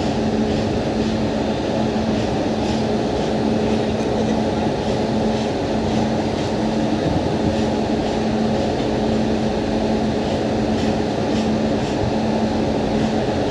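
WAP-7 electric locomotive humming steadily, a continuous machine drone with a steady low tone.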